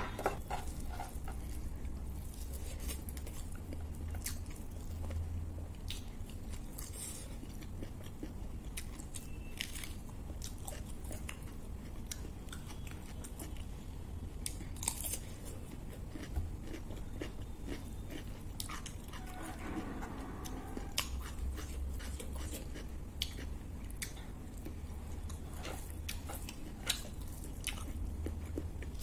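Close-miked chewing and biting of food by someone eating, with scattered crisp clicks and crunches.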